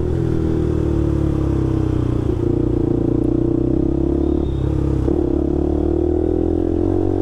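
KTM RC 200's single-cylinder engine running steadily as the motorcycle rides along, its pitch shifting slightly a couple of times.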